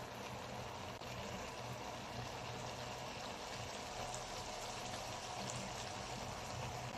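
Coconut-milk stew of bamboo shoots, saluyot and shrimp simmering in a pan on a still-lit stove: a steady, quiet bubbling hiss with a faint low hum underneath.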